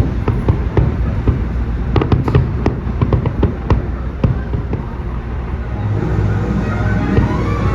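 Aerial fireworks bursting and crackling in quick, irregular succession over a steady low rumble, the bangs thinning out after about four and a half seconds.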